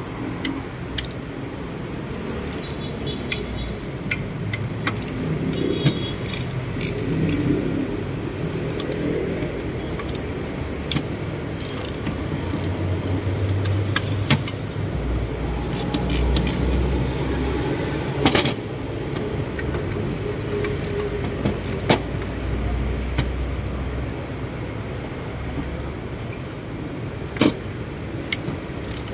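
Scattered metal clicks and clinks of a socket wrench and loose parts as a turbocharger is unbolted and taken apart on a steel bench, with a low rumble behind that swells twice.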